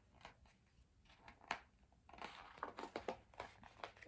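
Faint handling of a picture book as its page is turned: soft papery rustles and small taps, the sharpest about a second and a half in and a run of them in the second half.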